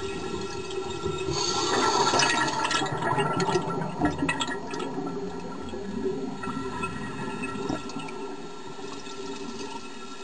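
Underwater air bubbles rushing and gurgling, loudest about two seconds in, then settling to a steadier bubbling.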